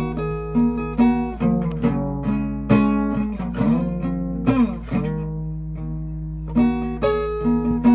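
Acoustic guitar played fingerstyle: single notes and chords picked one after another, with a few notes sliding in pitch around the middle.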